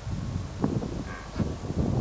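Wind rumbling and buffeting on the microphone outdoors, with a brief higher call about a second in.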